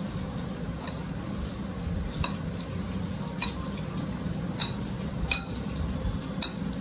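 A spoon stirring chickpea and chopped-vegetable chaat in a glass bowl. The mixing runs steadily, with a sharp clink of the spoon against the glass about once a second.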